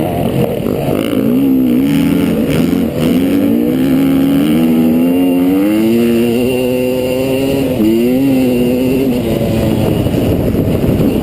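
Trail bike engine being ridden, its pitch climbing again and again as it revs, dropping back sharply about three seconds in and again just before eight seconds.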